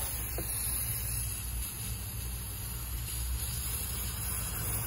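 Aerosol can of carburetor cleaner spraying in a steady, unbroken hiss.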